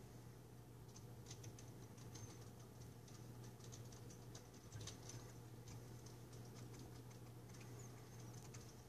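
Near silence: a faint steady low hum with scattered faint high-pitched clicks and ticks.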